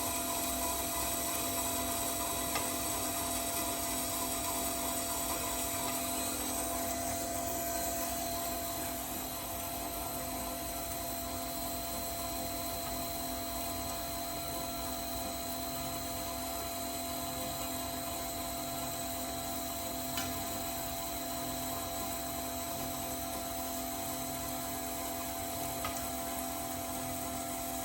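SAPHIR GDM Craft 250 x 310 band saw running steadily with a whine, easing slightly in level about nine seconds in.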